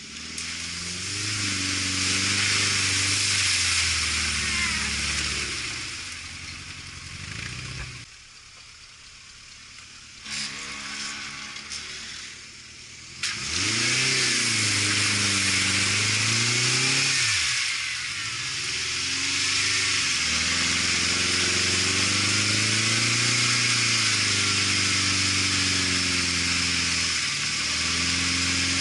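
An off-road 4x4's engine revving up and down under load, with a steady hiss over it. About eight seconds in the engine sound drops away, and it comes back suddenly about five seconds later.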